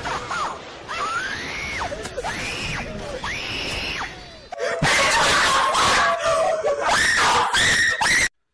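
Screaming meme sound effect: a series of short high screams that each rise and fall, then a louder, harsher scream from about five seconds in that cuts off abruptly near the end.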